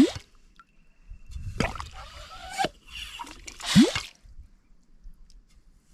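Yabby pump sucking wet mud: three squelching sucks as the plunger is drawn, one at the start, one around two seconds in and one around four seconds, the first and last ending in a quick rising gurgle.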